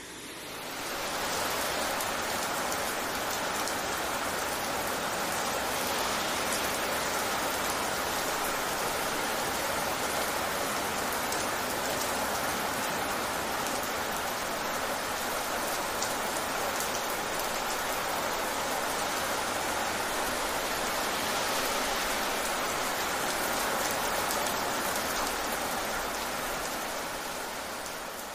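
Steady rain falling, a dense even hiss of many drops, fading in over the first second and fading out near the end.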